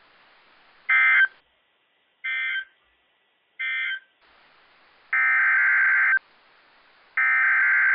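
NOAA Weather Radio SAME digital data bursts, a buzzy two-tone warble. Three short end-of-message bursts come about a second and a half apart, then two longer header bursts of about a second each announce the next alert.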